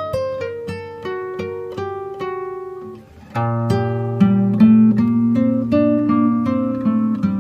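Background music: a plucked acoustic guitar tune of single picked notes. About three seconds in it briefly drops away, then comes back louder and fuller, with a held bass note under the melody.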